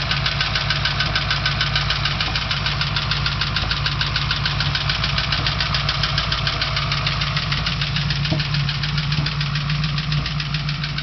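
383 small-block Chevy V8 idling steadily with a fast, even ticking. The engine burns oil and has heavy blow-by, which the owner takes for piston rings that have not seated.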